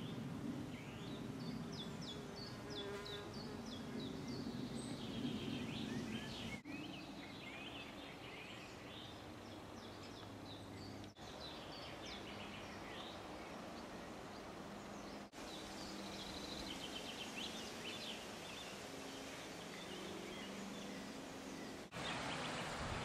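Woodland ambience: small birds chirping and singing over a low steady hum, with the sound dipping briefly a few times at cuts.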